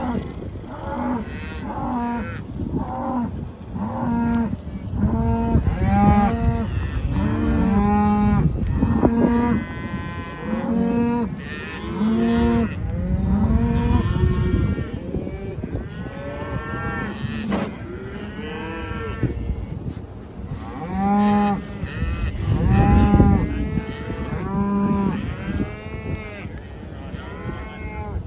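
A herd of cattle mooing and bawling over and over, the calls overlapping one another, some deep and some higher-pitched.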